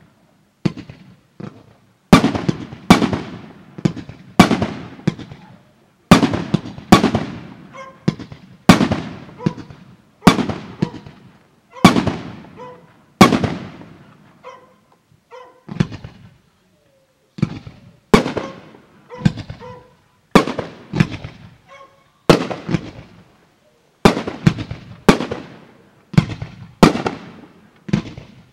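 Fireworks display: battery shots and aerial shells go off in a steady string of sharp bangs, about one a second, each trailing off in an echo. The firing thins out for a few seconds a little past the middle.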